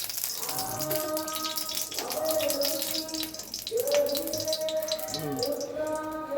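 Oil sizzling and crackling in a frying pan, with a song with singing playing in the background.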